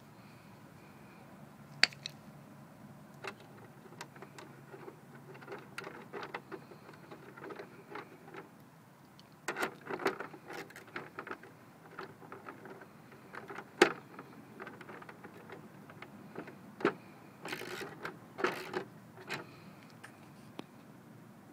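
Handling noises: scattered sharp clicks and taps, with two short stretches of rustling and knocking, the loudest click about two-thirds of the way through.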